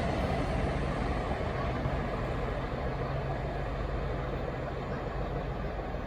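Diesel-hauled train running past, a steady low engine rumble and rail noise slowly fading away.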